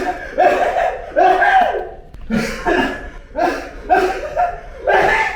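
A person's voice making a rapid run of short, loud, pitched vocal bursts, about two a second, each starting with a sharp burst of breath.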